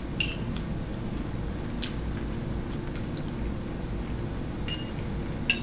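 A metal fork clinking and scraping against a ceramic plate about five times as food is picked up, with the sharpest clink near the end, over faint soft eating sounds.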